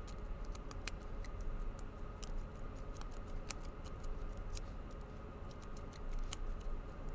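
Small, irregular metallic clicks and scrapes of a lock pick and tension wrench working the pins inside a Master Lock M5 padlock's keyway.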